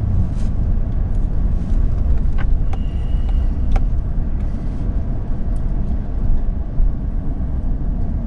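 Snow plow truck driving, heard from inside the cab: a steady low engine and road rumble, with a few light clicks about two and a half and four seconds in.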